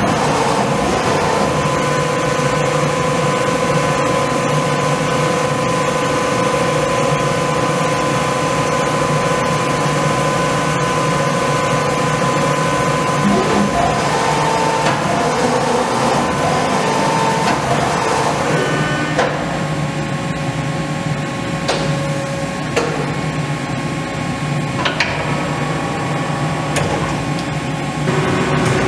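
Prvomajska Raša CNC lathe running an automatic turning cycle with the spindle turning, a steady machine whine whose pitch shifts twice partway through. A few sharp clicks come in the later part, and the spindle has stopped near the end.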